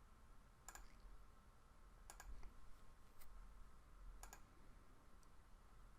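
A handful of faint, sharp computer mouse clicks, spaced irregularly about a second apart, over near-silent room tone.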